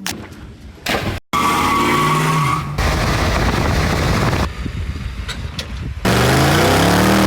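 An engine revving in a series of short edited clips, its pitch falling then rising, with abrupt cuts between the clips.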